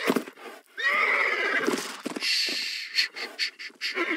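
A horse whinnying several times, with a few sharp knocks near the end.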